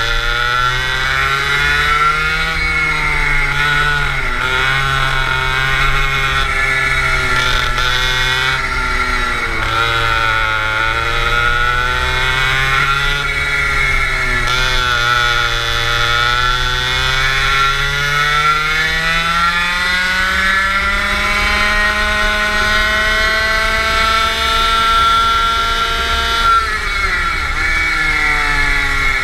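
Go-kart engine heard from the driver's seat, its pitch dropping several times under braking into corners and climbing again on the straights. A long steady climb through the middle ends in a sharp drop near the end before it picks up again.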